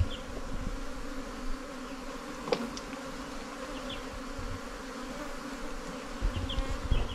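A swarm of honeybees buzzing in a steady, even hum around their underground nest, which is being dug open. A few low bumps come near the end.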